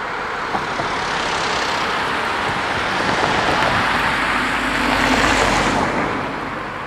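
A car and a white van driving past close by, tyre and engine noise swelling to a peak about five seconds in, then fading as they pull away.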